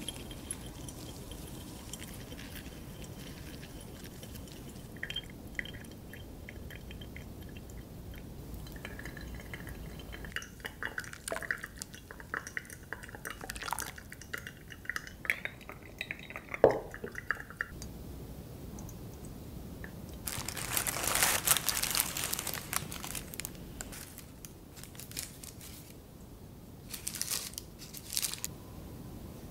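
Hot water poured from a gooseneck kettle onto coffee grounds in a paper-filter dripper, trickling and dripping through, with a louder rushing stretch about two-thirds of the way in. Near the end a butter knife clicks a few times against a ceramic plate as it cuts a macaron.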